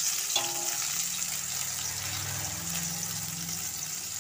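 Fish steaks shallow-frying in hot oil in a kadai, with a steady sizzle.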